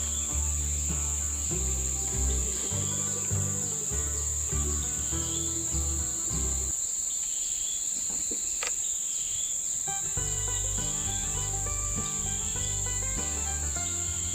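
A steady, high-pitched insect drone that does not let up, with background music of sustained notes changing in steps. The music drops out for a few seconds around the middle while the insects carry on.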